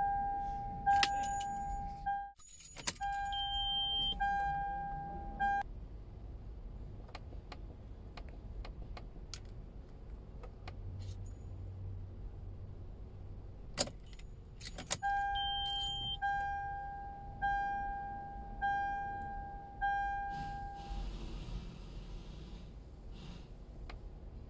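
Toyota Land Cruiser instrument-cluster warning chime sounding over and over, a single pitched ding about once a second. It stops for several seconds, then two sharp clicks come a second apart and the chime resumes for a few more seconds.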